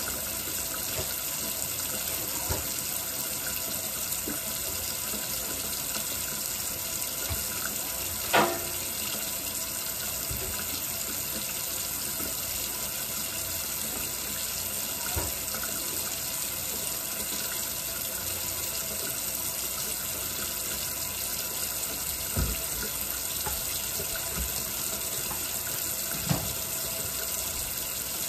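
Kitchen faucet running steadily into the sink, with a few knocks and clinks of things being washed; the loudest is a short ringing clink about eight seconds in.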